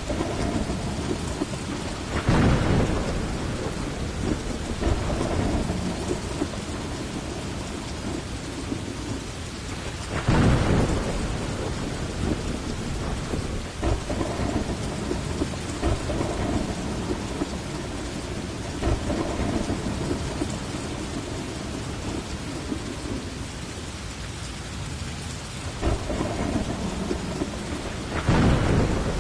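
Heavy rain falling steadily through a thunderstorm, with rolling thunder; three louder thunderclaps come about two seconds in, about ten seconds in, and near the end.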